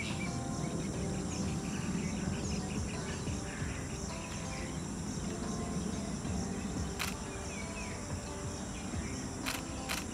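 Outdoor nature ambience: a steady background hiss with insects chirping in quick pulsed trains and scattered small bird chirps. A few sharp clicks come near the end.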